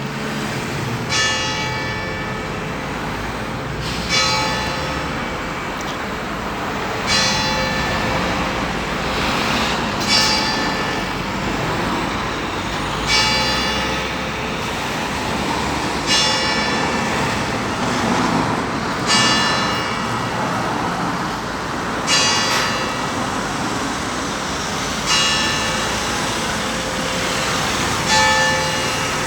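A single church tower bell tolling steadily, struck about once every three seconds, each stroke ringing on and fading before the next. It is the bell rung to call people to Mass.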